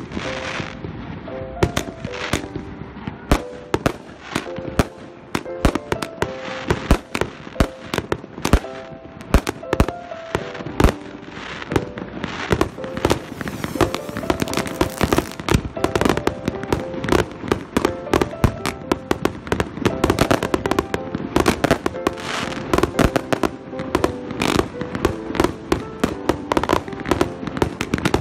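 A 70-shot aerial fireworks cake firing in quick succession: an irregular string of sharp launch reports and bursting cracks, often several a second.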